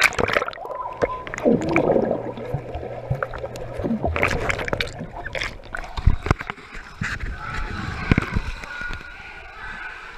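Swimming-pool water churned by a swimmer, heard through a microphone at and under the water line: gurgling and sloshing with sharp splashes and knocks scattered throughout.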